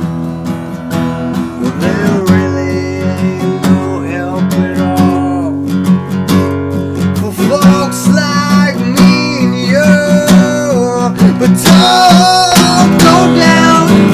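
Acoustic guitar strummed steadily in a country-folk style, with a voice singing over it.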